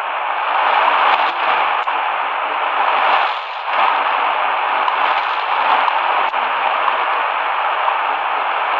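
Shortwave static from the XHDATA D-328 pocket radio's speaker: a steady hiss with a few faint crackles as the radio is tuned between stations on the low shortwave band.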